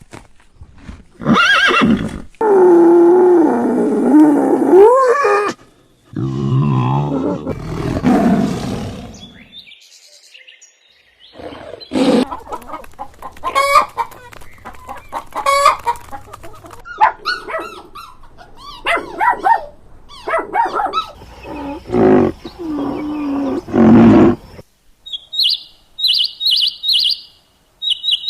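Chickens calling: two long wavering calls early on, then a long run of short clucks, and rapid high-pitched chirps near the end.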